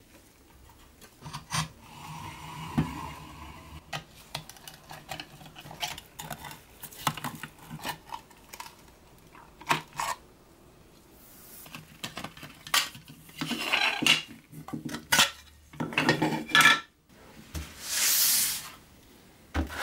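Gloved hands dismantling a rusty pressed-steel Tonka toy truck: scattered small clicks and knocks of metal and hard plastic parts. In the second half there are longer scraping and rubbing sounds as the clear plastic windshield is worked out of the rusty steel cab.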